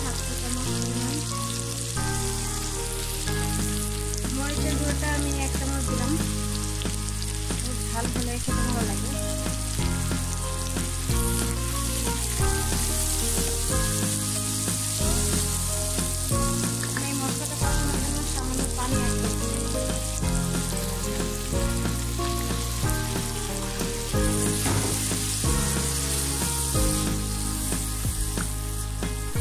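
Onions and potato pieces sizzling steadily as they fry in oil in a nonstick pan, stirred with a silicone spatula. Background music with a stepping bass line plays underneath.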